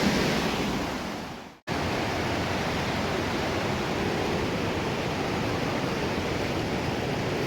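Steady rush of a mountain river's flowing water. It fades out about a second and a half in, then comes back at once at an even level.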